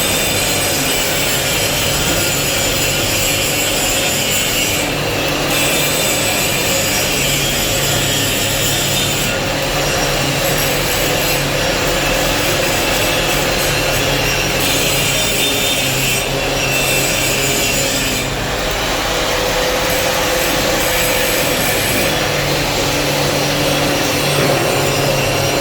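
Angle grinder grinding steel, a steady rasping with brief changes in the highest part of the sound as the disc's contact shifts.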